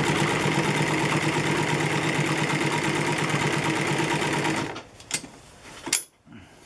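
Juki LU-562 walking-foot industrial lockstitch sewing machine running at speed, stitching a test seam through folded denim with a fast, even rhythm. It stops abruptly about four and a half seconds in, and a couple of sharp clicks follow.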